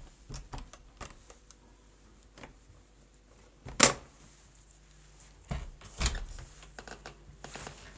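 Scattered sharp clicks and knocks of handling, the loudest single knock about four seconds in and a quick cluster of them around six seconds.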